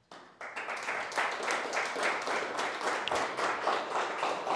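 Audience applauding, many hands clapping, starting abruptly.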